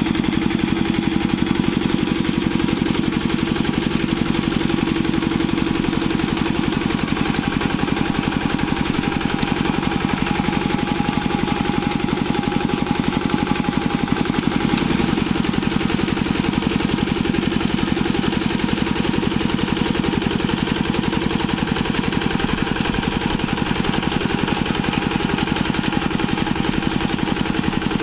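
Single-cylinder diesel engine of a two-wheel hand tractor running steadily with a fast, even beat as it drives a rotary tiller through wet paddy mud.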